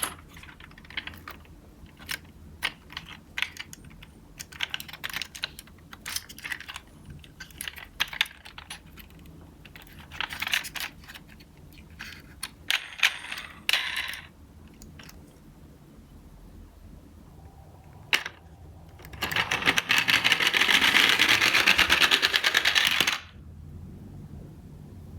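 Die-cast toy minicars clicking and clattering on a hard surface in irregular sharp taps, then about four seconds of fast, continuous rattling that cuts off suddenly.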